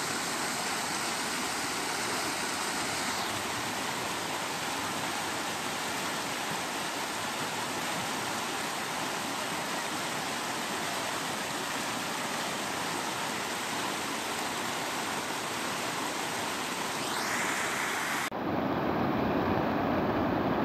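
Fast water rushing through a breach in an earthen bank, a steady, even rush. About eighteen seconds in it switches abruptly to water pouring over a low weir, a deeper rush.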